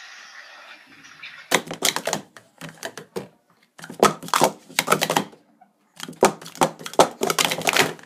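Rapid clattering of hard plastic sport-stacking cups as a 3-3-3 sequence is stacked up and taken back down, in several quick flurries of clicks from about a second and a half in.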